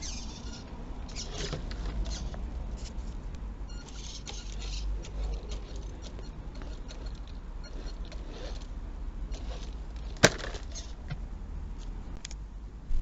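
Radio-controlled car driving through mud: a constant low rumble with scattered crackling and ticking, and one sharp click about ten seconds in.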